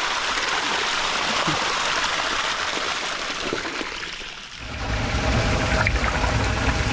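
Water rushing and splashing through a homemade sieve pre-filter. A little over halfway in, a low steady hum from the pump feeding the sieve joins the flowing water.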